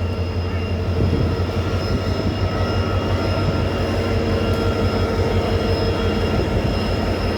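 Passenger train pulling out of a station: steady running noise with a strong low hum and a few thin, high, steady whining tones above it.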